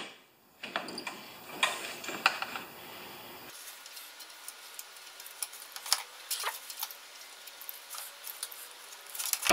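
Light, irregular metallic clicks and taps of an Allen key and hand tools working a fastener on a snow thrower's engine.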